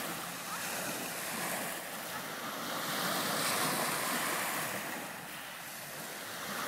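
Small sea waves breaking and washing up a gravelly beach at the water's edge, the surf swelling to a peak about halfway through, easing, then building again near the end.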